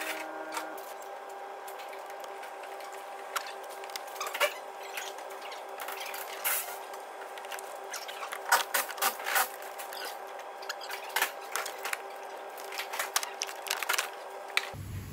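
Irregular clicks and knocks of plastic clips, electrical connectors and the plastic fuse box and battery cover housing being unclipped and lifted out of a car's engine bay, the clicks coming thicker in the second half. Under them runs a steady, even hum.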